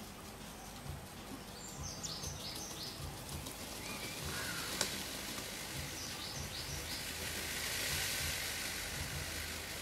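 Outdoor background noise with a small bird calling a quick run of four or five high notes, twice, a few seconds apart. A single sharp click comes near the middle, and a broad rushing noise swells near the end.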